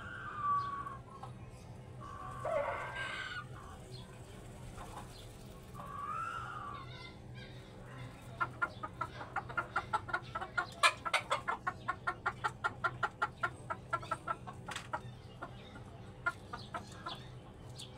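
Chickens calling: a few short pitched calls in the first seven seconds, then a long rapid run of clucks, about five a second, from about eight seconds in until about fifteen.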